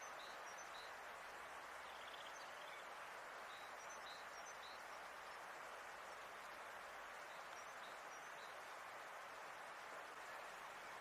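Faint, steady outdoor hiss with small birds chirping faintly now and then, mostly in the first half and again briefly about eight seconds in.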